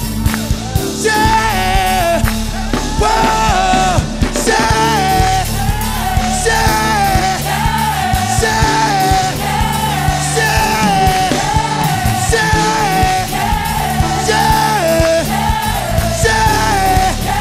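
Live gospel praise band playing fast dance music: drum kit, steady bass and keyboards, with a singer over it and a short melodic phrase repeating again and again.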